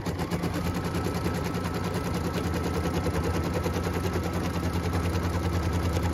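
Embroidery machine stitching at speed: a rapid, even clatter of needle strokes over a steady motor hum.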